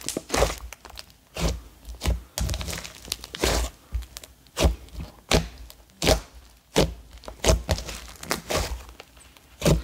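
Soft mint-green butter clay slime being kneaded, folded and stretched by hand to inflate it, giving irregular wet squelches and sharp pops, roughly one or two a second, as air trapped in the dough bursts.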